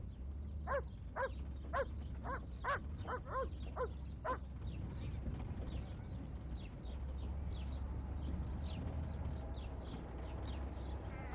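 A dog barking about nine times in quick succession in the first few seconds, with faint high bird chirps throughout. Underneath is a low engine rumble that grows a little louder in the second half as a car approaches.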